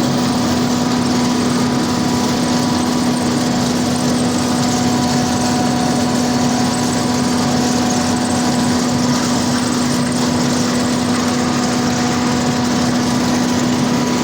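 Corn harvesting machine running steadily at working speed: a loud, even mechanical din with a constant steady hum through it.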